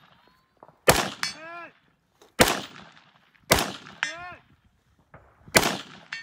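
Four rifle shots at long-range steel targets, a second or two apart. Three of them are followed about half a second later by a short pitched clang from a steel plate being hit downrange.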